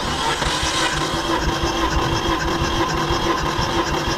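Peugeot-Citroën EP6CDT 1.6-litre turbo petrol engine cranked over by its starter motor without firing, with an even rhythmic pulse, for a compression test of the fourth cylinder. The gauge reads about 10 kg/cm², even with the other cylinders.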